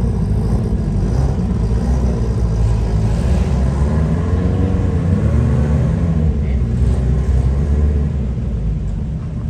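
R5 rally car's turbocharged four-cylinder engine revving up and down several times over a heavy low rumble.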